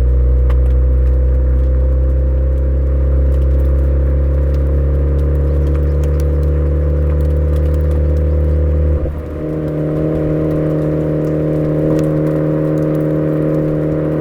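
Suzuki Swift Sport ZC33S's 1.4-litre turbocharged four-cylinder engine running through a Fujitsubo aftermarket exhaust, cruising steadily downhill. About nine seconds in the tone changes abruptly with a brief dip in level, then settles into a new steady note.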